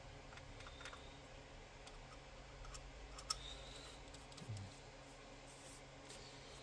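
Faint scattered clicks of a small screwdriver and hand tools handled over the open radio's metal chassis, with one sharper click about three seconds in, over a low steady hum.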